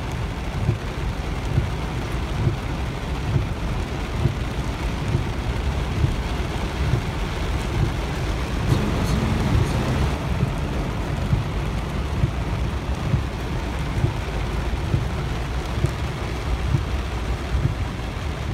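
Heavy rain beating on a car's roof and windshield, heard from inside the car as it drives through floodwater, with frequent short low thumps less than a second apart.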